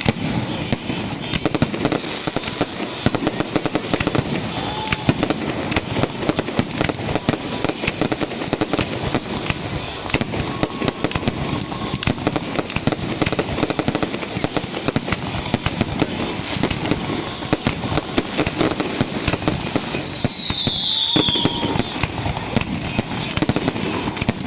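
A fireworks display: aerial shells bursting and crackling in a dense, unbroken barrage. A short falling whistle sounds about twenty seconds in.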